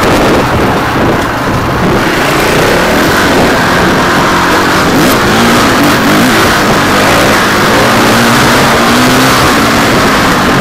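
Dirt bike engine running under throttle on a trail ride, heard from a bike-mounted camera, its pitch rising and falling, with heavy wind rush on the microphone.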